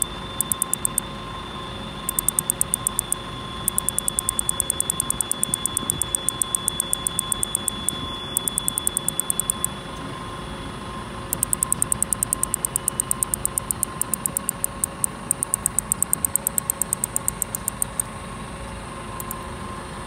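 Iwasaki's grass cicada (Mogannia minuta), Japan's smallest cicada, singing: a very high, fast ticking in runs of one to several seconds with short breaks, over a steady high hiss.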